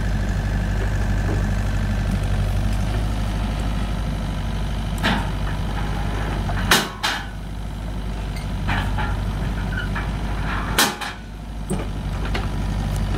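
Doosan DX55 mini excavator's diesel engine running steadily, with two sharp metal clanks about seven and eleven seconds in as the truck's steel loading ramps are let down onto the road.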